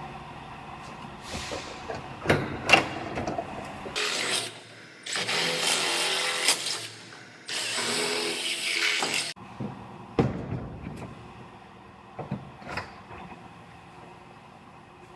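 A drill running in two bursts of about two seconds each, boring rivet holes through an aluminum truck bedside. A few sharp knocks and clatter of handling the panel come before and after.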